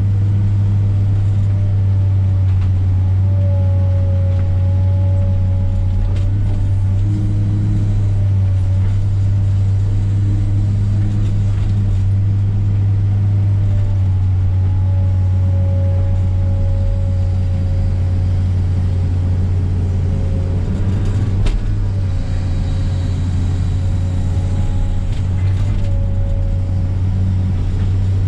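Komatsu PC300 excavator's diesel engine running steadily and loud, with a whine that wavers in pitch and comes and goes as the machine works.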